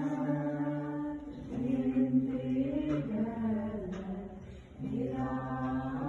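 Wordless singing: voices in harmony holding long notes, each held about a second before moving to the next chord, with two short breaks, one after about a second and a half and one near the five-second mark.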